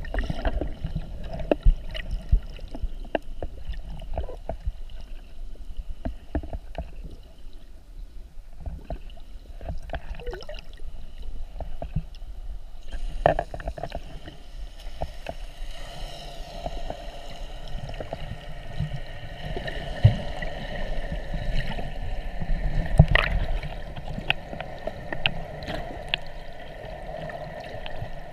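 Water heard underwater: muffled sloshing and rumbling with frequent small pops and clicks of bubbles and splashing as a snorkeller swims at the surface. About halfway through, a steady hum with several held tones joins and continues.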